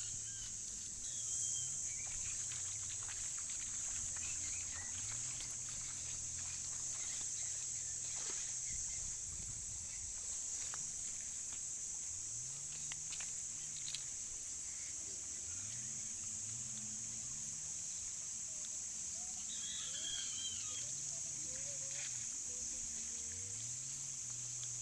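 A steady, high-pitched insect chorus drones throughout over outdoor ambience. A few short bird chirps come about twenty seconds in, and a faint low hum rises and falls again and again underneath.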